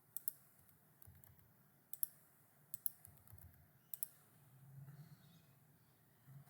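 Sharp clicks of computer input, four in all about a second apart, two of them doubled like a press and release, with a faint low hum a little past the middle.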